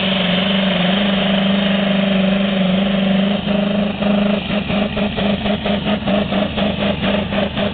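V8 engine of a modified pulling tractor, running on mazout (diesel fuel oil), runs steadily and then, about three seconds in, settles into an even pulsing beat of about three a second.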